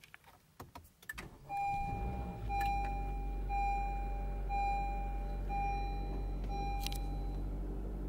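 A few clicks and a jingle of keys. Then a car engine starts and settles into a steady idle. Over it, a dashboard chime sounds six long beeps, about one a second.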